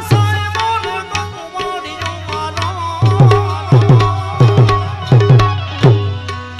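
Instrumental passage of a Gujarati santvani bhajan: tabla playing over a held melody line. In the second half comes a run of loud bass-drum strokes, each sliding down in pitch.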